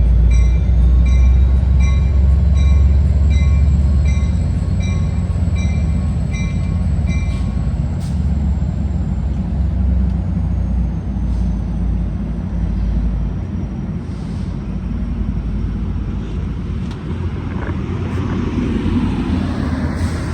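Amtrak passenger train pulling out behind an F59PHI diesel locomotive: the engine's deep throb is loudest in the first few seconds, then eases. A bell rings about once a second until roughly seven seconds in, and a faint high wheel squeal slowly falls in pitch.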